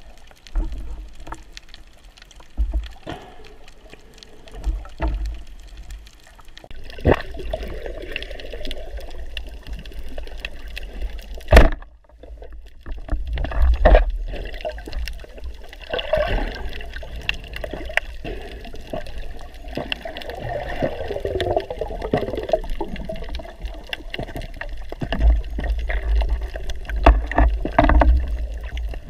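Underwater sound picked up by a diver's camera in its waterproof housing: water moving and gurgling over a low rumble, with scattered knocks and clicks and one sharp knock about twelve seconds in.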